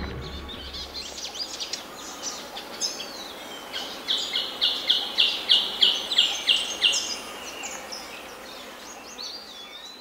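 Birds calling in a rainforest ambience, with chirps and whistled swooping calls. In the middle one bird gives a fast run of about a dozen sharp, evenly spaced high notes, about three or four a second, lasting some three seconds.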